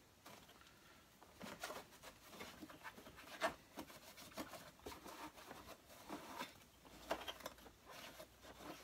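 Cloth wiping out the inside of an Electrolux The Boss vacuum cleaner's plastic housing: faint, irregular rubbing and scraping strokes with a few light knocks, the sharpest about three and a half seconds in.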